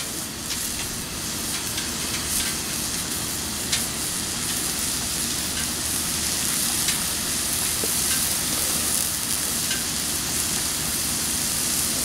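Ribeye steak sizzling steadily on a hot Pit Boss flat-top griddle as its fat renders out, with a few faint pops now and then.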